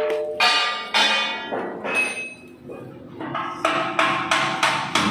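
Hammer blows on metal, about a dozen ringing strikes, irregularly spaced and quickening to about three a second in the second half.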